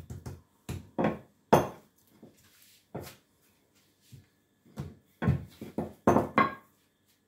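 Wooden rolling pin knocking and rolling on a worktop while roti dough is rolled out, irregular thumps with the loudest about a second and a half in and a quick run of knocks near the end.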